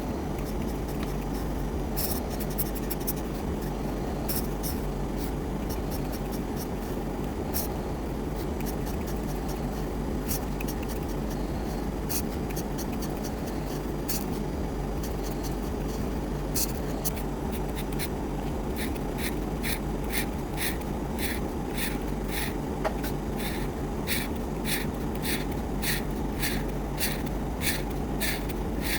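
A drawing tool scratching on paper as a picture is colored in. The strokes come sparsely at first, then settle into a quick, even back-and-forth of about two strokes a second, over a steady low hum.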